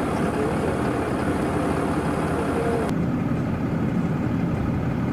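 Car engine idling steadily, a low, even hum. A faint hiss above it drops away about three seconds in.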